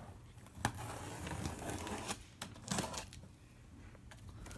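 Packing tape on a cardboard shipping box being cut and pulled open, with handling noise and a few sharp clicks.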